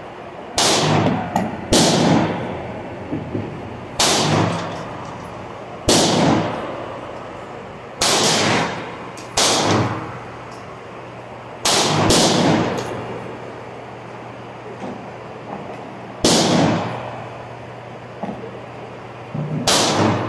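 Gunshots on a shooting range, about ten single shots fired at uneven intervals of one to four seconds, each followed by a short echo.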